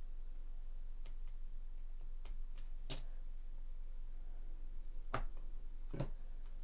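A scattering of short, sharp plastic clicks and taps from a trading card and its clear plastic sleeve and holder being handled in gloved hands, the loudest about three seconds in and two more near the end. A steady low hum runs underneath.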